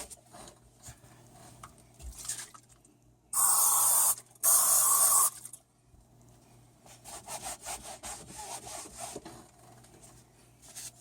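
Two short hisses from an aerosol can of furniture polish sprayed onto seat belt webbing, one after the other about four seconds in. A towel then rubs quick strokes along the webbing, working the polish in to lubricate a slow-retracting belt.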